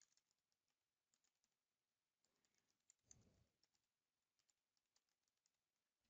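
Very faint computer keyboard typing: runs of light key clicks, with one duller thump about three seconds in.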